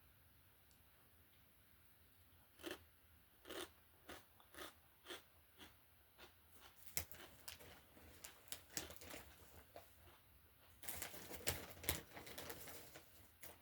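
Potato chips being bitten and chewed close to the microphone: crisp crunches starting a few seconds in, about two a second, turning into denser crackling chewing near the end.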